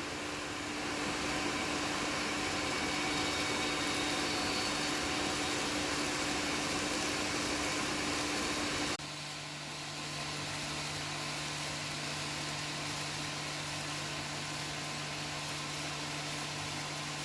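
N gauge model train running on its track: a steady electric-motor hum with wheel hiss. The sound changes abruptly about nine seconds in, settling into a lower steady hum.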